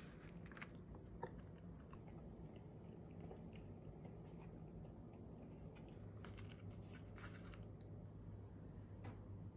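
Faint close-up sounds of someone eating sushi with wooden chopsticks: soft chewing and small clicks of the chopsticks on the plastic trays, with a cluster of clicks about six to seven seconds in. A low steady hum runs underneath.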